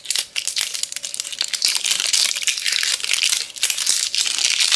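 Clear plastic shrink wrap being picked at and peeled off a tin ornament ball, crinkling and crackling with many small sharp crackles throughout.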